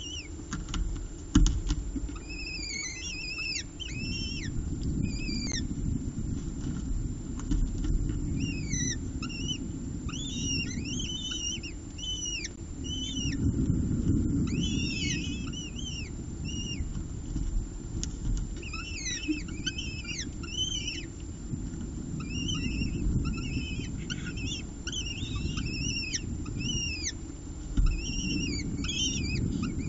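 Downy peregrine falcon eyases cheeping rapidly with high, piercing begging calls as they are fed, in runs with brief pauses. A steady low rumble lies beneath, and there are two sharp knocks, one near the start and one near the end.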